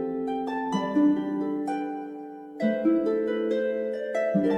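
Background music: a light melody of pitched notes over held chords, changing every half second or so, with no speech.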